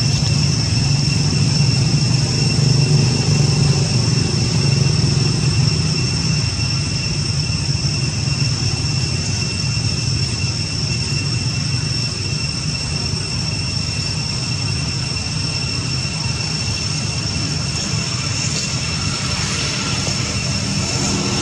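Steady outdoor background: a low engine-like rumble, louder in the first few seconds, under a constant high-pitched whine.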